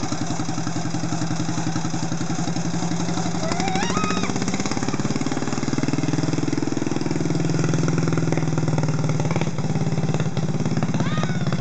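The 5 hp Briggs & Stratton Model 14 single-cylinder engine of a 1949 Tiger PTD5 garden tractor running steadily under load while the tractor pulls a cart of passengers. Its rapid, even firing pulses continue throughout.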